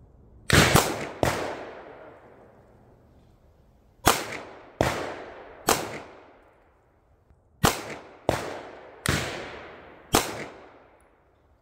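Sig Sauer P320 M17 9 mm pistol fired one-handed with the weak hand, a slow string of sharp shots, each report trailing off in a long echo.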